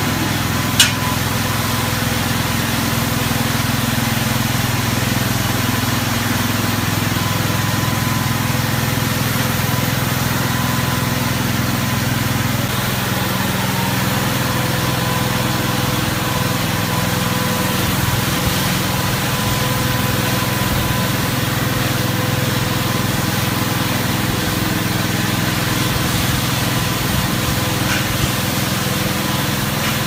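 Small ride-on sweeper with a large rotary brush running steadily: a constant motor hum with a thin steady whine over it, and one sharp click about a second in.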